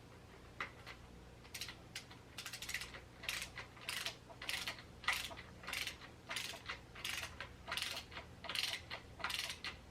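Hand ratchet clicking in short repeated back-and-forth strokes, about two or three a second, as it turns a fork clamp bolt made stiff with threadlocker.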